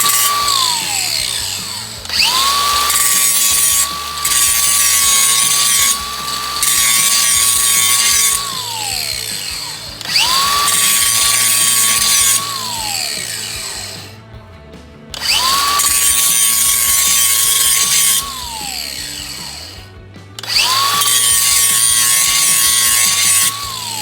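Power drill run in four bursts, its motor whining up to speed, holding steady for a few seconds, then winding down each time.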